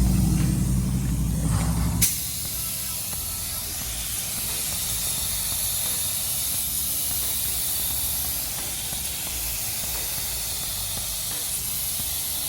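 Compressed-air paint spray gun hissing steadily as primer is sprayed onto the car body. For about the first two seconds it is joined by a loud low hum that then stops abruptly.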